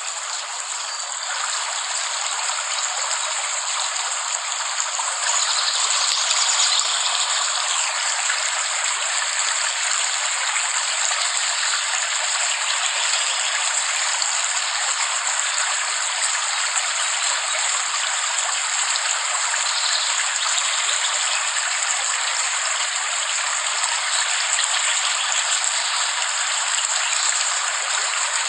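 Steady rain falling: a dense, even hiss of many drops with no single drops standing out, getting slightly louder about five seconds in.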